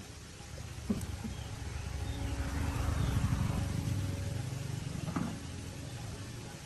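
Low engine rumble with a faint steady hum, swelling for a few seconds and easing off, with a sharp knock about a second in and another about five seconds in.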